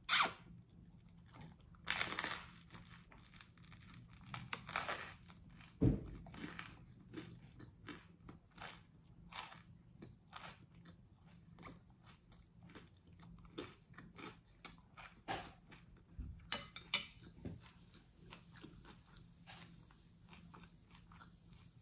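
Close chewing of a mouthful of spaghetti and toasted garlic bread: irregular crisp crunches and wet mouth sounds, with a few louder crunches scattered through.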